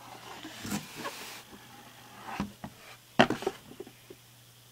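Cardboard box being opened by hand: a short scraping rustle about a second in, then a few sharp knocks and taps of the box and its packaging, the loudest a little past three seconds.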